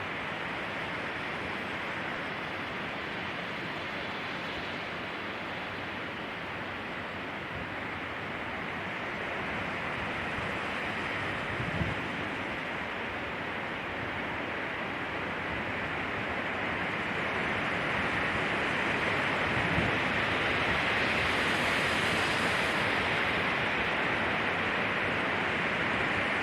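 Wind rushing through pine trees, a steady hiss-like rush that swells gradually louder over the second half, with two brief low bumps partway through. The recording is edited to pan alternately between left and right.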